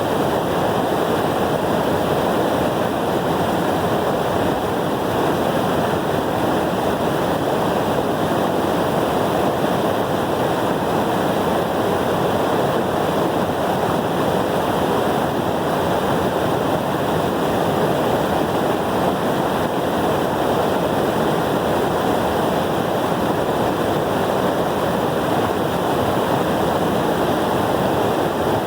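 Waterfall's water falling and splashing in a loud, steady, unbroken rush.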